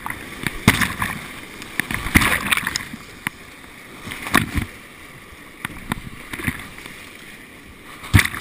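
Whitewater kayak running a steep creek rapid: rushing white water with irregular loud splashes as paddle strokes hit the water and waves break over the boat and camera.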